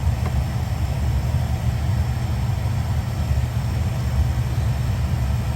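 Oil-fired boiler burner running with a steady low rumble.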